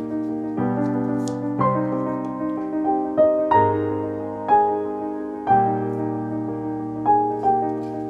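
Gentle solo piano music, a slow piece of sustained chords and single notes changing about once a second.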